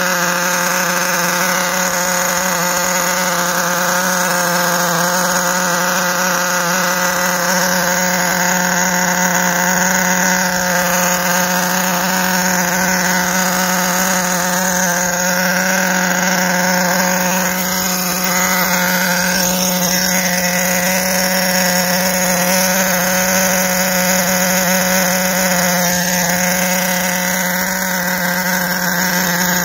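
HPI K4.6 nitro RC engine, its piston sleeve freshly re-pinched, running steadily and evenly at a constant speed with the truck up on a stand. The engine is running well after its three-needle carburettor was tuned.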